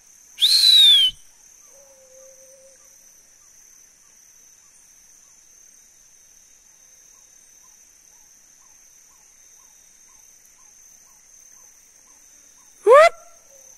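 Steady high chorus of forest insects, with a faint regular ticking in the middle. It is broken by two loud short cries: one about half a second in, and a pitched cry that falls steeply near the end.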